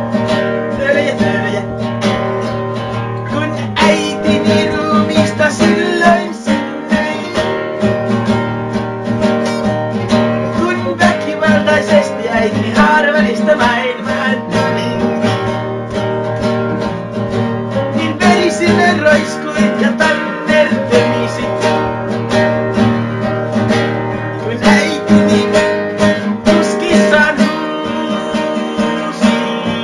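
Two acoustic classical guitars strummed together in a fast, steady rhythm, with a man's singing over them at times.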